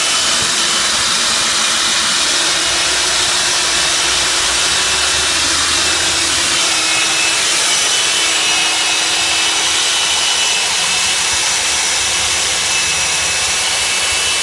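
Hilti DD 160 diamond core drill running steadily under load as it cores into a block, a continuous motor whine over grinding noise, the pitch dipping slightly about halfway through.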